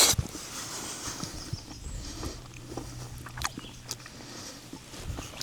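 Eating sounds: chewing with scattered small clicks of a wooden spoon against the skillet, after a short rustling burst at the very start.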